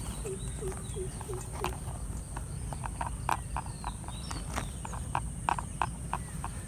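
Scattered sharp clicks and taps at an uneven pace over a steady high insect drone. In the first two seconds there is a run of six short, low, evenly repeated calls.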